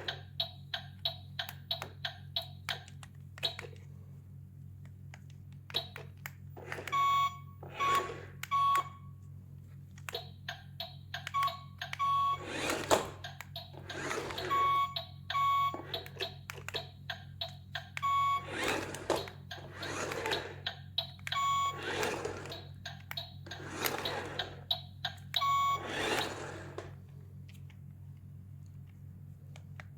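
Short electronic beeps and sharp clicks, joined about halfway through by a series of short whooshes, over a steady low hum.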